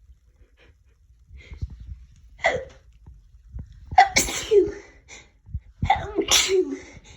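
A fit of sneezing: a lighter sneeze about two and a half seconds in, then two hard sneezes about four and six seconds in, with small sniffs before them.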